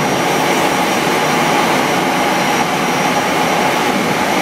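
Steady, loud jet turbine noise from an Airbus A340-300 on the ramp: an even rush with a constant high whine over it.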